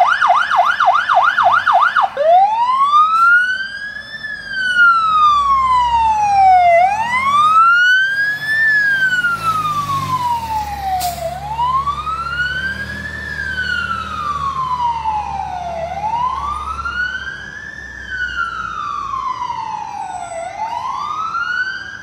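Fire engine's electronic siren: a rapid yelp, about four sweeps a second, for the first two seconds, then a slow wail rising and falling about every four and a half seconds as the truck drives off.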